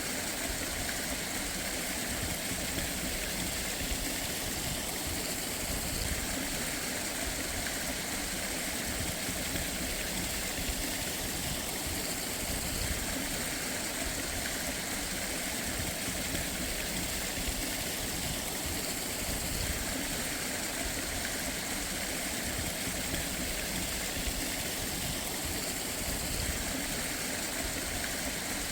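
Water of a mountain stream rushing steadily.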